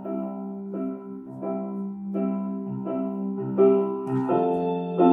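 Piano music: chords struck evenly about every three-quarters of a second over a held low note, growing fuller and louder about four seconds in.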